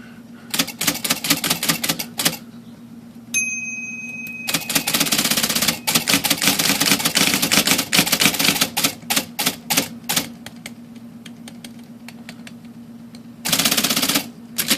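IBM Selectric II electric typewriter running under power: a steady motor hum with runs of rapid mechanical clicking as the spacebar repeats and the carriage functions cycle, and a short ringing tone about three seconds in. The machine is being checked after levelling the plate that the operational cam triggers latch to, so that return, index and backspace stop firing by themselves.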